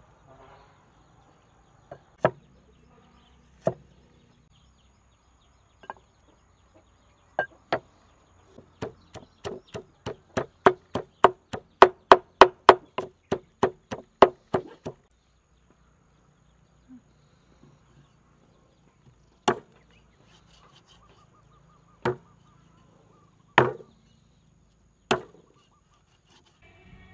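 Wooden pestle pounding curry-paste herbs (garlic, ginger, lemongrass) in a deep wooden mortar: a few single knocks, then a fast even run of about three or four strikes a second for some six seconds. Later come four separate heavy chops of a cleaver on a wooden chopping board.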